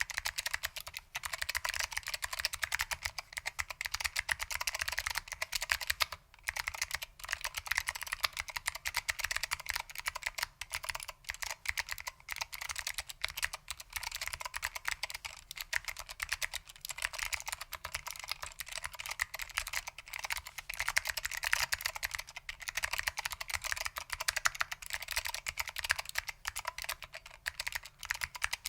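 Fast continuous typing on a mechanical keyboard with SKCM Blue Alps switches and PBT keycaps: a dense stream of sharp, clicky keystrokes, pausing briefly once partway through.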